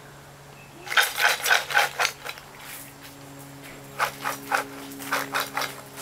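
Footsteps crunching on a gravel path, two quick runs of steps at about four or five a second: one about a second in and another about four seconds in.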